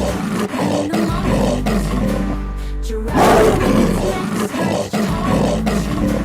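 Tiger roar sound effect, heard twice: one roar is already under way and dies away by about three seconds in, and a second starts about three seconds in. Light background music plays underneath.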